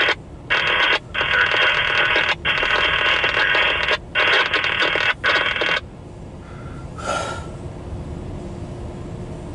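Railroad scanner radio carrying a trackside defect detector's automated voice report, a thin radio-filtered voice in several phrases for about five seconds, then a short squawk about seven seconds in. The steady low rumble of the passing autorack train runs underneath.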